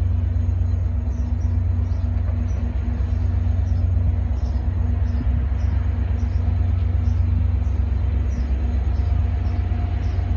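VIA Rail diesel locomotive running as its passenger train approaches slowly, a steady low rumble with a steady hum over it.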